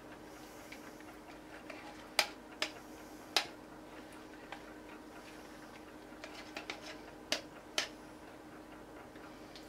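A few sharp, irregular clicks and taps from plastic containers being handled while thick soap batter is poured, over a faint steady hum.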